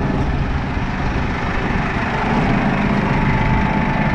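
Massey Ferguson 6715S tractor's four-cylinder diesel engine idling steadily close by, growing a little louder about halfway through.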